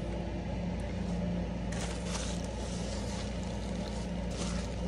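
A man eating a burger: chewing with brief paper-wrapper rustles about two seconds in and again near the end, over a steady low hum.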